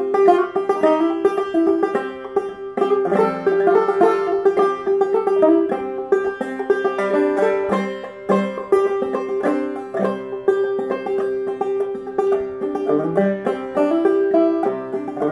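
Five-string banjo played clawhammer style: a brisk melody of plucked notes with a high drone note sounding again and again beneath it.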